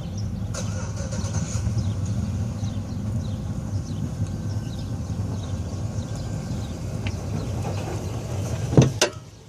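A car engine running with a steady low drone that cuts off abruptly near the end, followed by a couple of sharp clicks.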